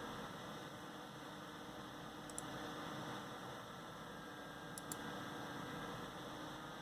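AMD Wraith Spire stock CPU cooler fan running with a steady whir and a faint hum, with a faint double tick about every two and a half seconds; this is the fan noise the owner calls loud.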